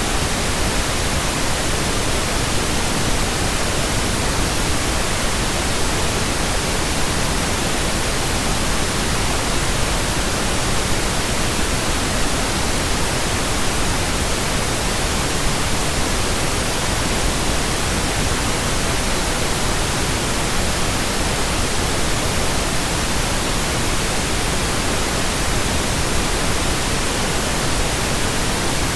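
Steady pink noise: a generated hiss spread evenly from low to high pitches, unchanging throughout.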